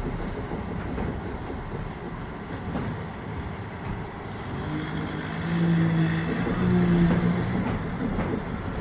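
Truck-mounted concrete pump running on a job site: constant heavy machine noise, with a steady pitched drone that comes in louder for about three seconds past the middle.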